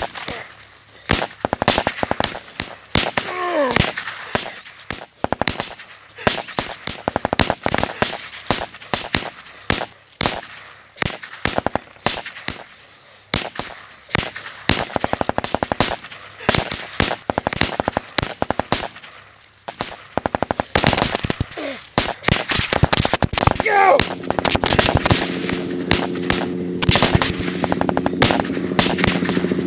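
Sustained, irregular gunfire: a dense run of single shots and short bursts with no break, as in a firefight. Two brief shouts cut through, around 3 s and 23 s in. From about 24 s a held low musical chord comes in under the shots.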